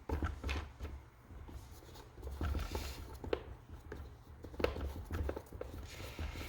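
Small clicks and knocks of a screwdriver backing out the long screws of a chainsaw's air filter cover, with the plastic cover being handled.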